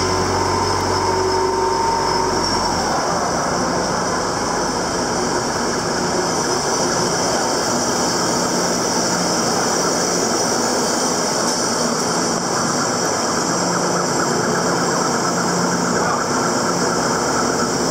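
Steady, loud industrial machinery din of a coke dry quenching plant. A low hum stops about three seconds in, leaving a continuous even noise.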